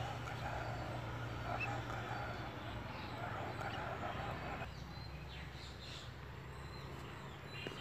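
Outdoor background noise: a low steady hum under a mid-pitched murmur that drops away a little past halfway, after which faint bird chirps come through.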